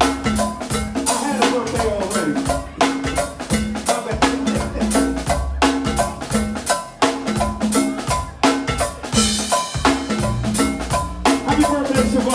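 Music with a steady, evenly spaced drum-kit beat of snare and bass drum under a pitched melody line.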